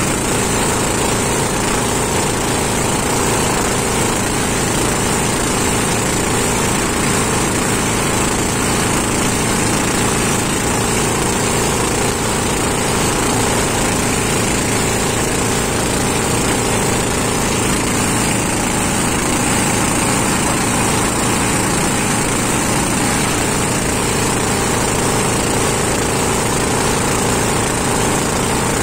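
Small wooden motorboat's engine running steadily at cruising speed, an even hum with no change in pitch.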